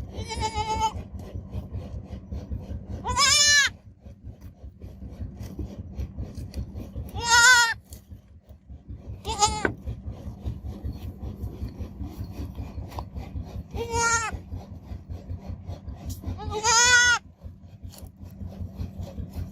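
A baby goat (kid) bleats about six times, a few seconds apart, each call short and wavering in pitch. Under the bleats runs a constant low rasping, rubbing noise.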